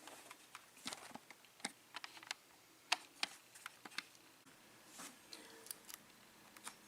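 Faint, irregular small clicks and taps of metal lockpicking tools and a padlock being handled, the loudest a sharp click about three seconds in.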